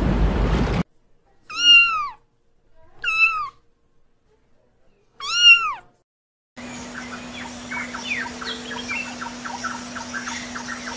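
A domestic cat meowing three times, each meow rising and then falling in pitch. The last meow is the loudest. A rush of noise cuts off just before the first meow, and after the meows a steady hum with many small quick chirps begins.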